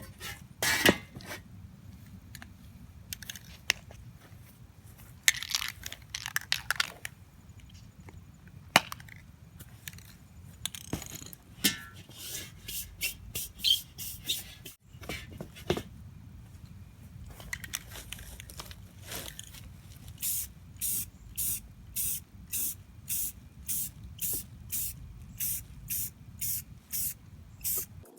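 Aerosol spray paint can hissing in short bursts, among scattered clicks and knocks of handling in the first half. Near the end, a steady run of quick, even sprays, about two a second.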